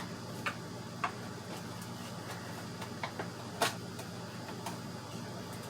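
A handful of light, irregular clicks and taps from a CPU's box and plastic packaging being handled, the loudest a little past halfway, over a steady low hum.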